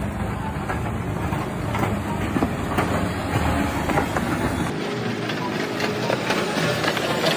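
Heavy machinery clattering and rattling, a dense run of knocks and clicks over a low rumble; the rumble drops away about five seconds in.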